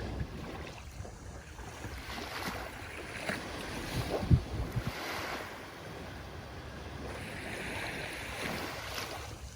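Ocean surf washing in and out in slow swells. A few low thumps of wind buffeting the microphone, the strongest about four seconds in.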